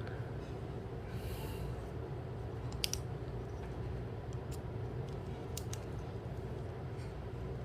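A handful of sharp clicks from the fold-out tools of a Leatherman OHT multi-tool being snapped shut and opened, over a steady low hum.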